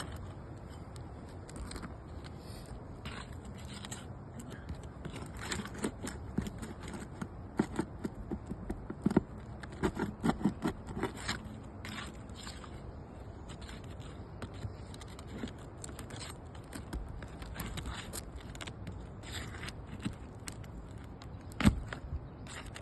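Metal pry tools scraping and prying under asphalt roof shingles to break the seals and pull the nails: irregular scrapes and clicks, busiest in the middle, with one sharp knock near the end.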